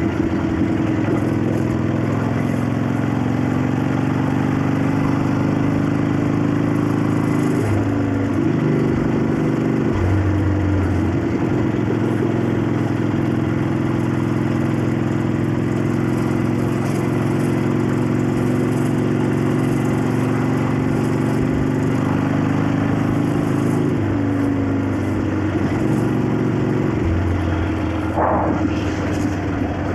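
1965 Harley-Davidson XLCH Sportster's 883 cc Ironhead V-twin running on the road, its pitch climbing slowly and dropping several times with changes of speed, with the valves clacking.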